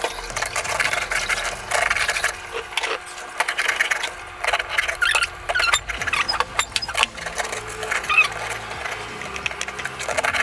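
Serrated bread knife sawing through a baguette on a plastic cutting board: repeated back-and-forth strokes, with sharp knocks here and there as the blade or bread hits the board.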